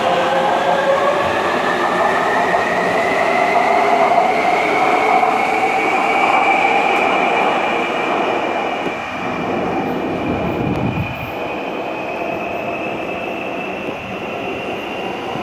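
Taipei Metro C321 electric train accelerating out of the station. Its traction motors whine, rising steadily in pitch, over wheel-on-rail rumble, and the sound fades after about eight seconds as the train enters the tunnel.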